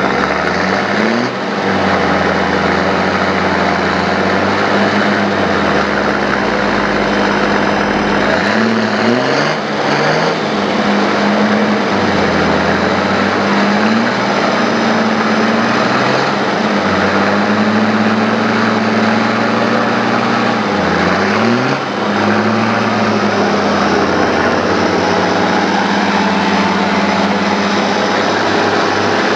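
Off-road 4x4 engine running under load in deep mud, its revs rising sharply and then holding several times while the bogged pickup is pulled out on a line.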